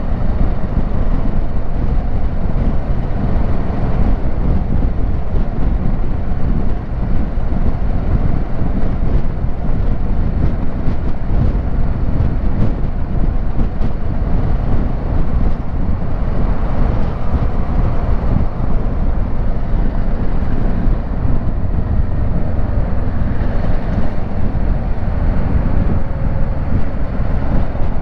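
Kawasaki Versys 650 parallel-twin engine running steadily while riding at road speed, mixed with wind rumbling on the microphone.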